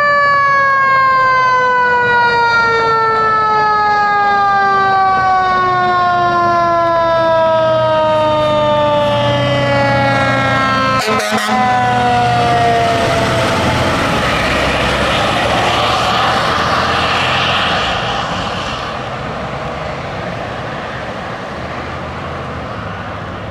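Fire hazmat truck's siren winds up to a high pitch, then winds down in one long falling tone that fades out over about thirteen seconds. The truck's engine and road noise follow as it passes.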